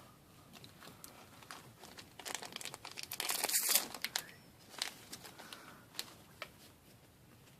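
Foil booster-pack wrapper crinkling as trading cards are handled, loudest for a couple of seconds in the middle, followed by a few faint card clicks.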